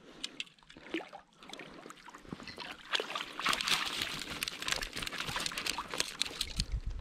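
Water splashing as a hooked brown trout thrashes at the surface and is netted. Small drips and splashes at first, then from about three seconds in a loud, busy spell of splashing.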